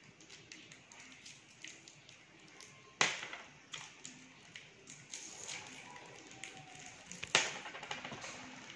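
Small plastic candy wrappers crinkling and crackling as Mentos are unwrapped by hand, with two louder sudden sounds, one about 3 seconds in and one about 7 seconds in.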